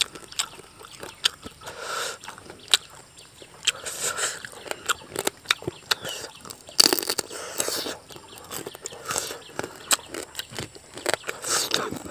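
Close-up eating sounds of a person chewing and sucking on boiled crab pieces with rice: wet mouth clicks and smacks scattered throughout, with a sharp crunch about seven seconds in.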